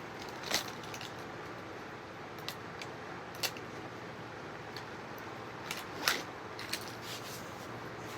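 Electric fan running with a steady hum and whir, with half a dozen sharp clicks and taps scattered through it.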